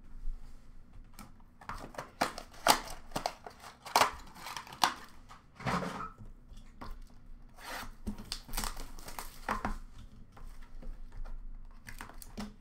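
Trading-card boxes and their packaging being handled and opened by hand: irregular rustling, scraping and short taps of cardboard and plastic, with some tearing-like rips.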